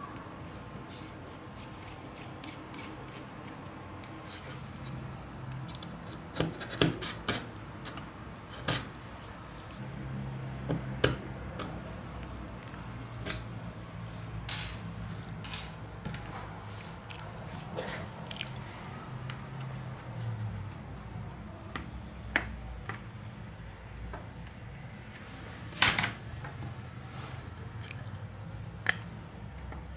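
Small repair tools clicking and scraping against a smartphone's casing during disassembly: scattered sharp clicks with a few louder snaps, over a faint low hum.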